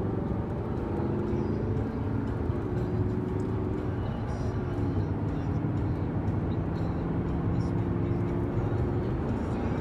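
Audi R8's mid-mounted 4.2-litre V8, heard from inside the cabin, running steadily under tyre and road rumble. The engine note drops about halfway through, then starts rising near the end as the car accelerates.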